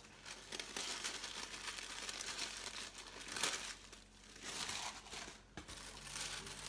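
Tissue paper rustling and crinkling as hands unfold it and fold it back inside a cardboard box, with a few louder rustles along the way.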